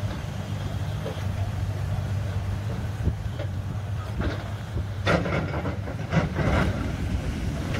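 Tracked excavator's diesel engine running steadily under load as it tears at a wrecked wooden fishing boat hull, with several sharp cracks and crunches in the second half from the hull breaking up.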